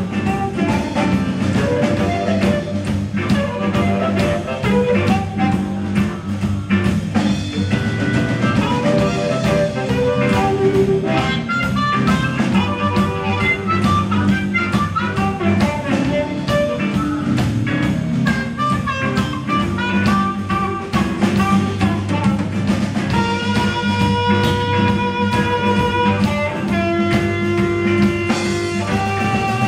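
Blues band playing live: harmonica cupped to a microphone carries the lead, over electric guitar, acoustic guitar and a drum kit keeping a steady beat.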